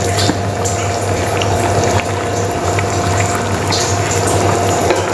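Matar paneer curry, peas and paneer cubes in a thin gravy, boiling hard in an open pan: a steady bubbling with many small pops, over a constant low hum.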